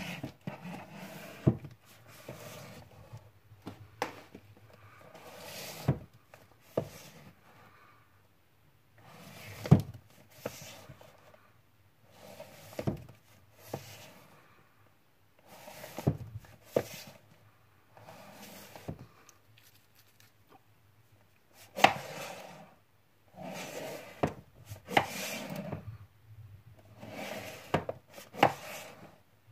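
Blu-ray cases being slid out of and pushed back into a tightly packed row on a wooden shelf: irregular scraping and rubbing, broken by sharp knocks as the cases tap against each other and the shelf.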